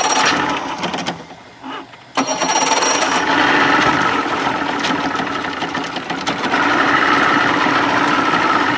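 An outboard motor's electric starter cranking the engine, which does not fire: there is no fuel tank connected, and the battery is low. It stops about a second in and starts cranking again about two seconds in. The owner blames over-long battery cables.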